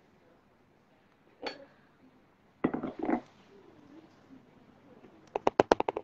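Glass pan lid clinking and knocking against a metal pukis mould pan: a single knock, then a louder clatter, then a quick rattle of about nine clinks near the end as the lid is moved.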